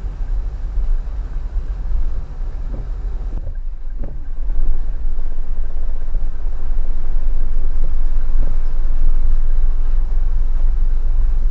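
A Toyota Avanza 1.3 with a 1300 cc engine driving through floodwater: a heavy low rumble of the engine and water, dipping briefly and then growing louder from about four and a half seconds in.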